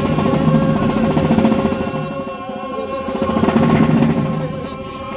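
High school marching band playing: the brass holds one long chord over a rapid snare drum roll and pulsing low brass and drums. The band swells louder twice.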